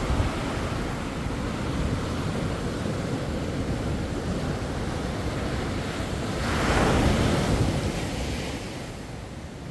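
Sea waves breaking and washing up on a beach, with a steady rush of surf and one louder wave crashing about two-thirds of the way in, then fading. Wind buffets the microphone at times.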